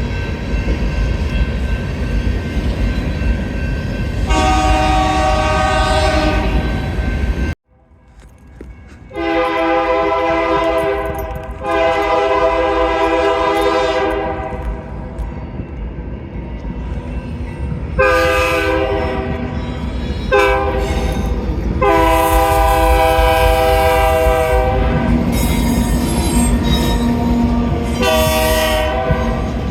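Multi-chime air horn of a GE diesel freight locomotive sounding over the locomotive's engine rumble. There is one blast, then a sudden cut. After the cut come a string of blasts: two long ones, a pause, a shorter pair, a long one, and another short blast near the end.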